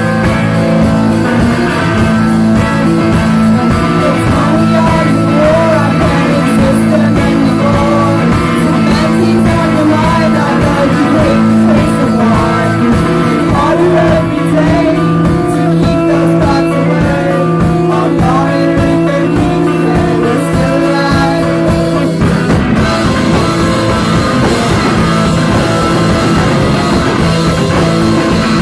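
Rock band playing live: electric guitar, keyboard and drum kit together, with singing.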